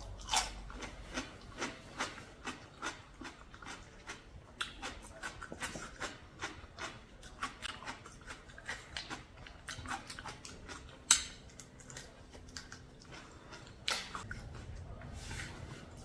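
Close-up eating sounds: chewing and crunching of a spicy mixed-seafood papaya salad, a steady string of short crisp crunches and wet clicks a few a second, with one louder crack about eleven seconds in.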